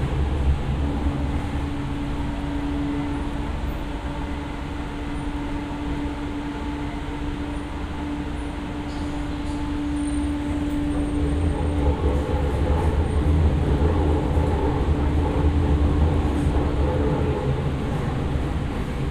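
Hyderabad Metro train running between stations, heard from inside the car: a steady low rumble with a steady hum over it that fades out about twelve seconds in, while the rumble grows louder through the second half.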